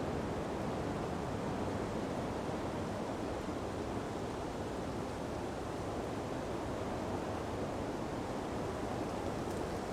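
Ocean breeze blowing steadily through palm trees: an even, unbroken noise with no distinct events.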